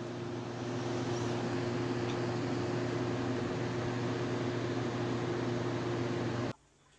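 A steady low hum over an even hiss, which cuts off suddenly about six and a half seconds in.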